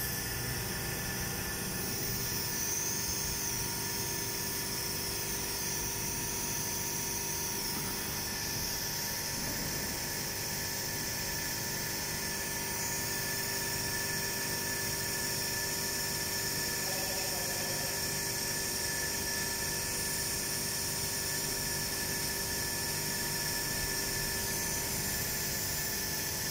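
A steady, high-pitched machine whine over an even hiss, unchanging in level.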